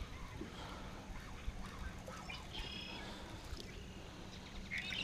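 Birds calling: short, rapidly pulsed high calls, one about two and a half seconds in and another near the end, over faint outdoor background.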